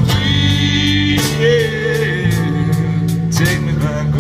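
Live band jamming: acoustic and electric guitars over a drum kit, with cymbal strokes through the passage.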